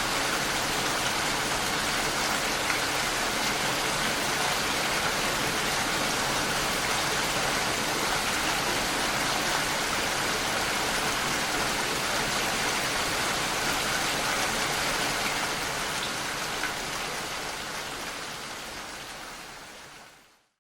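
Steady rainfall, an even hiss of falling rain, fading out over the last few seconds.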